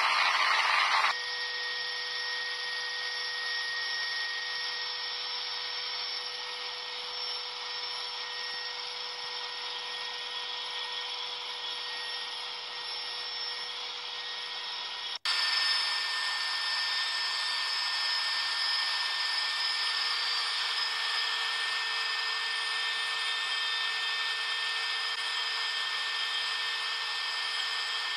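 Steady whine and rush of an aircraft in flight, with a constant pitched hum running through it. The sound drops out briefly about fifteen seconds in and comes back louder, heard from inside a helicopter cabin.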